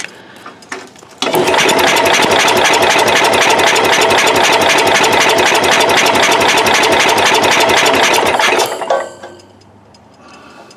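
Cub Cadet 108 lawn tractor engine being cranked on the starter for about seven seconds with a fast, even chugging, then it stops without catching. It cranks but will not start, which the owner puts down to worn ignition points giving weak spark.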